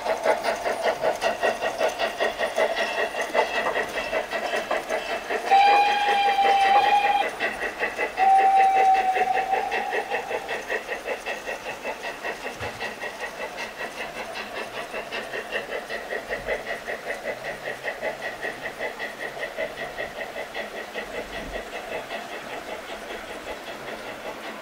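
Garden-railway model steam locomotives running with their chuff sound on, a steady rhythmic chuffing that grows quieter as the train moves away. Two whistle blasts sound, about six seconds in and again about two seconds later.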